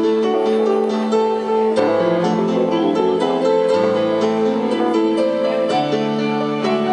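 Live band jam: a stage keyboard played with a piano sound, held chords shifting every second or two, with electric guitar alongside.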